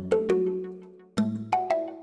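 Background music: a light melody of short struck notes, each ringing and dying away, with a brief lull about halfway through before the notes start again.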